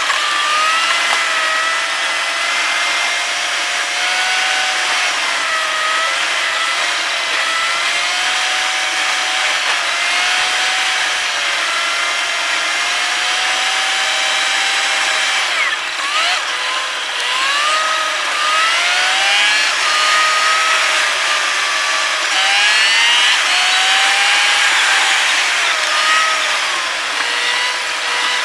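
A car's engine and road noise in a fast-forwarded recording, turned into a high-pitched, buzzing whine over a steady hiss. The pitch rises and falls every second or two as the car speeds up and slows, with a sudden drop and quick climb about sixteen seconds in.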